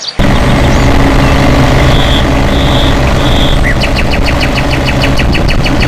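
A loud engine running steadily, starting abruptly. From about four seconds in, a rapid series of short high-pitched pips, about five a second, plays over it.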